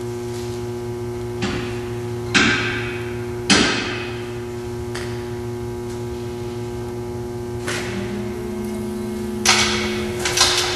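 Sharp metal clanks and knocks from hand tools and steel bumper hardware as a tube bumper is bolted up, coming at irregular intervals with a few louder ones, over a steady hum.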